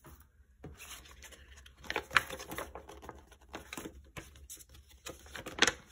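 Hands handling paper sheets and kit contents on a wooden tabletop: light rustling and a run of small taps and clicks, with sharper knocks about two seconds in and near the end.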